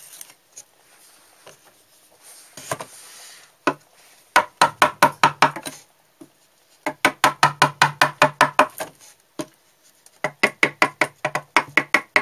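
A carving chisel striking and chopping into a wooden board in three quick bursts of sharp knocks, about seven a second, with a few single knocks before the first burst.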